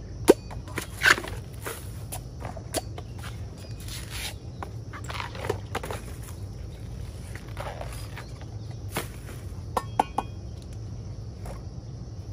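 A machete striking and cutting fresh bamboo shoots: irregular sharp knocks, the loudest near the start and a pair near the end, with rustling of husks and dry leaf litter underfoot.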